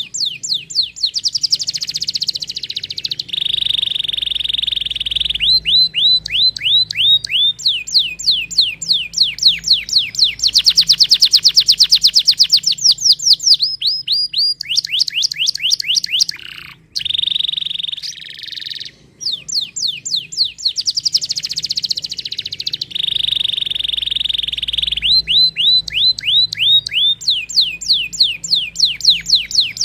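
Domestic canary singing a long, loud song. Fast trills of quick downward-swooping notes, some slower and some very rapid, alternate with sustained high rolling tours. The same run of phrases comes round again about halfway through.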